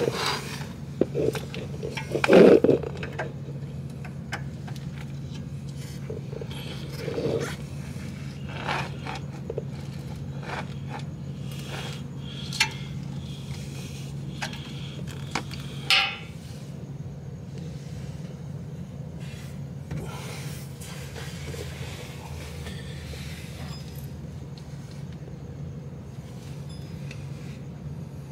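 Irregular metal clicks, taps and scrapes from hand work with a grease gun on a car's rear suspension, with a louder scrape about two and a half seconds in and another near the middle, over a steady low hum.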